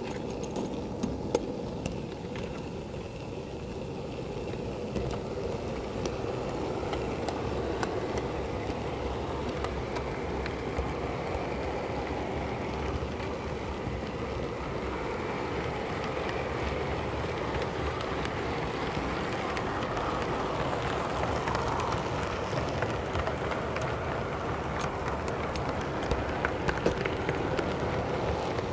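Model Class 08 diesel shunter running along the layout's track, heard from a camera riding on it: a steady rattle and rumble of its wheels on the rails with a steady hum, and scattered clicks as it crosses rail joints. A cluster of louder clicks comes near the end as it runs over pointwork.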